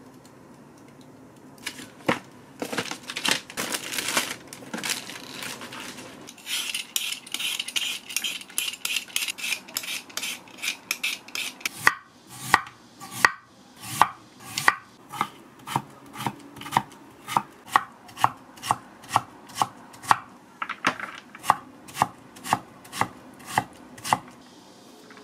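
Kitchen knife chopping peeled potatoes on a wooden cutting board. The first half has quicker, denser cutting and rustling. It then settles into steady single chops about two a second as the potato is cut into thin slices and then minced.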